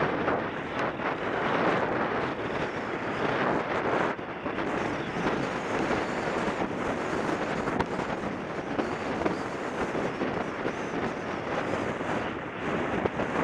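Wind rushing over a helmet-mounted camera's microphone as the rider's horse moves at speed along a dirt track, a steady dense rush with small irregular buffets.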